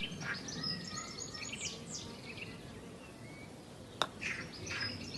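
Faint bird chirps over a quiet background hiss, with a single sharp click about four seconds in.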